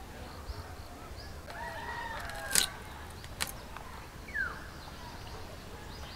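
Birds calling in the background. A short sharp click comes about two and a half seconds in and a fainter one a second later, as a small fish is cut on a bonti, a curved blade fixed on a wooden base.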